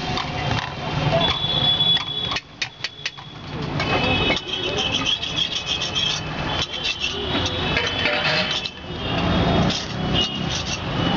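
Busy roadside street noise: running vehicle engines and people talking. A quick run of sharp clicks comes about two and a half seconds in.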